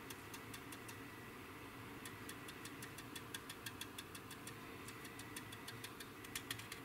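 Stiff stippling brush dabbing weathering colour onto the plastic wing of a scale-model aircraft: faint, irregular light taps, a few a second, coming faster near the end.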